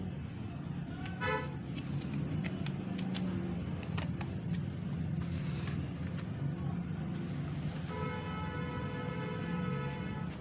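Light plastic clicks and knocks as the parts of a laser toner cartridge are handled, over a steady background rumble of road traffic. A vehicle horn toots briefly about a second in and sounds again in a longer held blast near the end.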